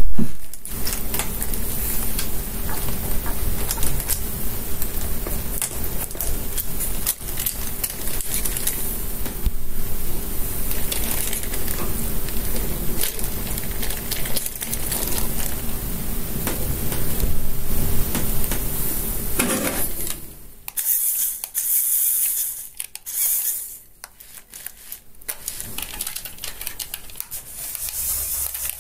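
Electric motors and plastic gear train of a CaDA LEGO Technic RC buggy chassis running, a steady whirring hum with rattling gears. About twenty seconds in the steady running stops, and short bursts of motor whine follow as the buggy drives about.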